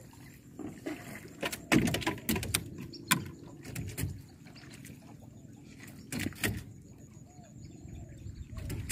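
Small boat being paddled through shallow water: water sloshing and splashing, with irregular sharp knocks of the paddle and hull, the loudest about two and three seconds in and again about six seconds in.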